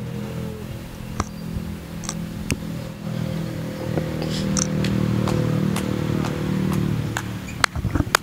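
A steady low hum with scattered light clicks, and a few hand claps near the end.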